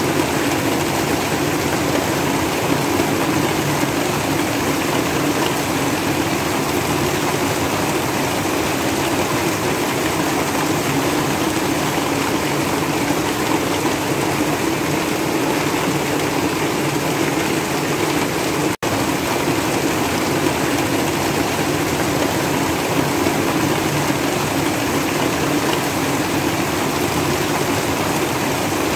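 Heavy rain pouring down steadily on the house roof and the yard, a dense unbroken rush of rain that cuts out for an instant about two-thirds of the way through.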